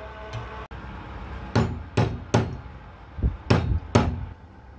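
Hammer striking metal: five sharp blows about half a second apart, with one duller knock among them.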